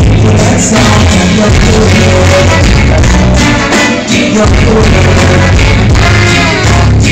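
Live band music with a singer, captured loud and distorted on a phone's overloaded microphone.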